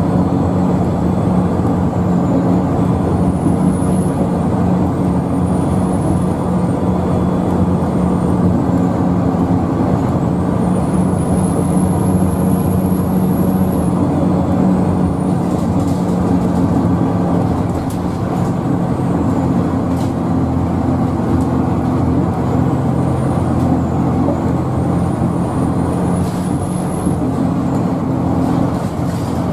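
Scania L94UB bus under way, heard from inside the cabin: steady engine drone and road noise, with a faint high whine that rises and then drops several times.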